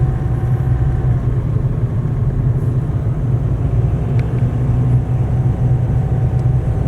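Car driving at a steady pace: a steady low drone of engine and road noise, heard from inside the vehicle.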